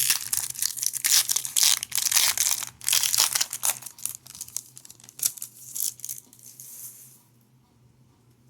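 A hockey card pack wrapper being torn open and crinkled: a dense crackling rustle that dies away about seven seconds in.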